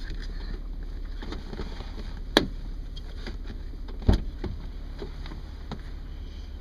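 A single 12-gauge shotgun shot and a second heavy thump, two sharp bangs about two seconds apart, over a steady low rumble.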